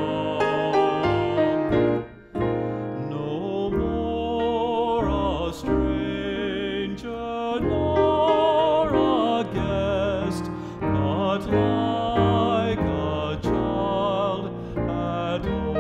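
Man singing a slow hymn melody with vibrato, accompanied by instruments including an upright bass.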